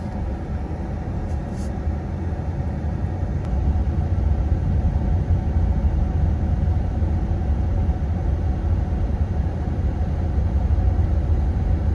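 Car interior noise while driving: a steady low rumble of the engine and the tyres on the road, getting somewhat louder about four seconds in.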